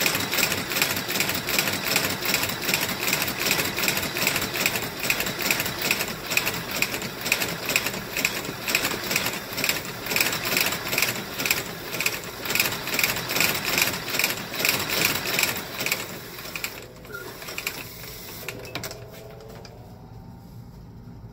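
Industrial boot stitching machine running, with a rapid, even mechanical clatter as it stitches through the leather welt and sole of a boot. The stitching stops about three-quarters of the way through, leaving quieter handling sounds.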